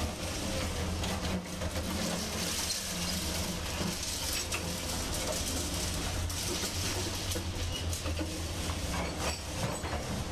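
Heavy diesel engine of an excavator running steadily, with scattered knocks and clatter throughout.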